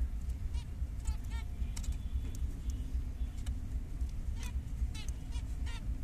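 Zebra finches calling: short nasal honking calls, about nine of them scattered through, over a steady low rumble.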